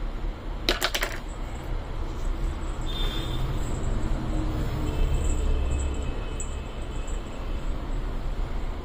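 Small bells (ghungroo) on a Shih Tzu puppy jingling in a quick run of clicks about a second in, over a steady low background rumble.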